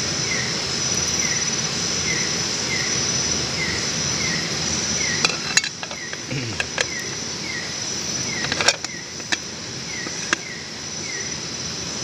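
Night insect chorus: a steady high-pitched trill with a short chirp repeating about twice a second, over a steady rushing background. Midway, several sharp clicks sound as the aluminium lid of the rice pot over the wood fire is handled.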